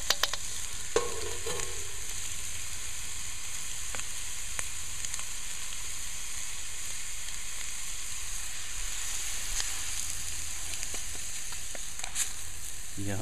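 Crumbled sausage sizzling in a small metal pan over a wood campfire, a steady hiss, with a few sharp clicks near the start.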